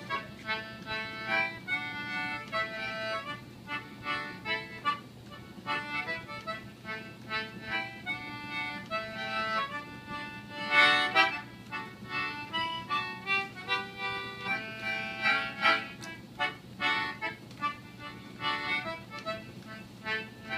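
Instrumental break between verses of an old music hall song: the accompanist plays the tune alone, a run of short held notes in a steady bouncy rhythm.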